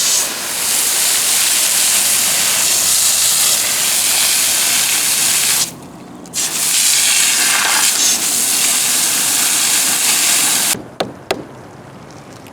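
Loud, steady spraying hiss in two runs of about five seconds each with a short break between them, followed by a few sharp clicks near the end.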